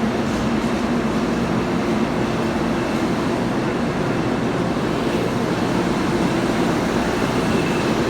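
Steady drone of Metro-North electric trains in the station: a low hum with a faint high whine over it, with no wheel clatter.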